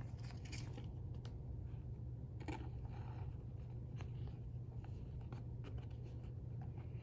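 Trading cards being handled: soft scraping and light clicks as cards slide against each other, over a steady low hum.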